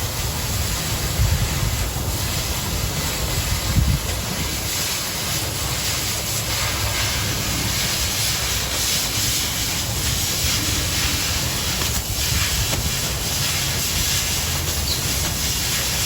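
Oxy-fuel cutting torch with the cutting-oxygen jet on, cutting through 1/4 inch steel plate: a steady rushing hiss with a low rumble, with brief louder spurts about one and four seconds in.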